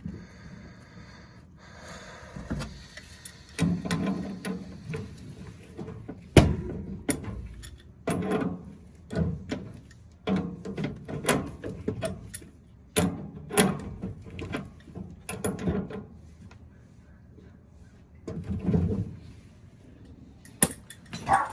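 Irregular clicks, knocks and rattles of metal furnace parts and hand tools being handled as the burner and gas orifice are refitted, with one sharper knock about six seconds in.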